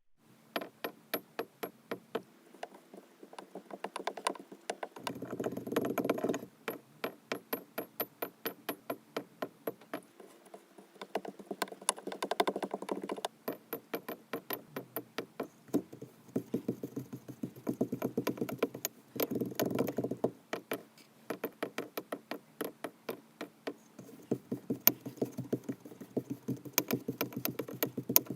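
Kinetic sand being pressed, cut and squished: a steady run of soft crackling clicks, about three a second, with patches of denser crunching.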